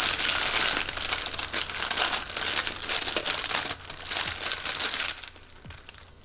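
A thin clear plastic bag crinkles and rustles as hands handle it and pull it open. The crinkling dies away about five seconds in.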